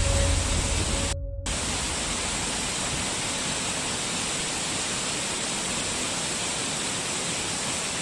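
Waterfall: a steady, even rush of falling water with no bird calls heard. In the first second a low rumble and a pair of held tones fade out, followed by a brief dropout before the water noise settles.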